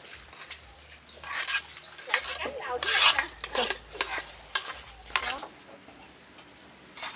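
A spoon stirring and scraping in a pot of cooking palm-sugar caramel, in a run of irregular strokes that stops about five and a half seconds in, with one more short scrape near the end.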